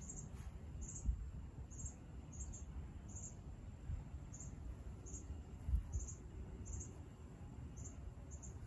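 An insect chirping: short, high chirps repeating about every half second to two-thirds of a second, over a low rumble with a couple of soft low thumps.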